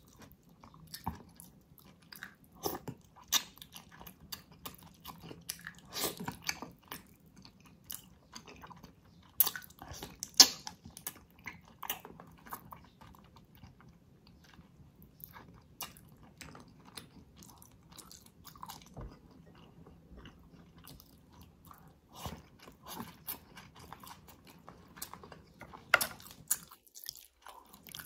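Close-miked chewing and biting of spicy braised ox feet: a string of irregular mouth clicks and smacks, sharpest about ten seconds in.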